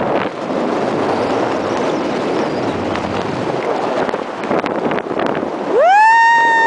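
Wind rushing over the camera microphone during a parachute descent. Near the end, a loud high tone rises quickly and holds steady for about a second.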